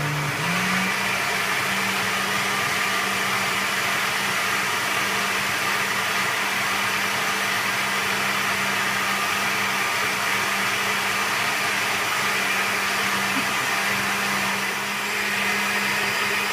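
Electric kitchen blender running steadily, puréeing cooked dal (lentils with onion, tomato and spices) into a smooth soup. Its pitch rises about half a second in, holds, then winds down and stops right at the end.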